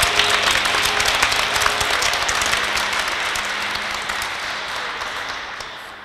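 Applause from many people clapping, loudest at the start and tapering off toward the end.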